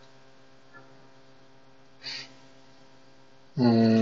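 Steady electrical mains hum on the recording, with a short breath about two seconds in and the start of a drawn-out spoken hesitation near the end.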